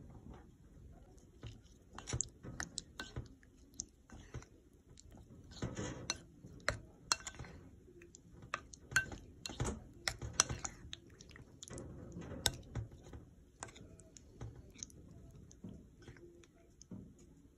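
Whole cherries being stirred into thick yogurt in a bowl: irregular wet squelches with clicks of cherries and utensil against the bowl.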